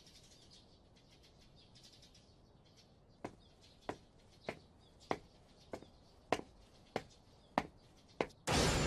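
Footsteps in sneakers on hard ground: nine light, evenly paced steps about 0.6 s apart, starting about three seconds in, with faint bird chirps before them. Near the end a sudden loud whoosh-like burst starts and slowly fades.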